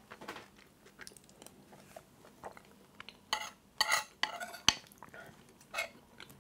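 Metal spoon scraping and clinking against a ceramic bowl while scooping food. A few short scrapes come in the second half, with one sharp clink a little under five seconds in.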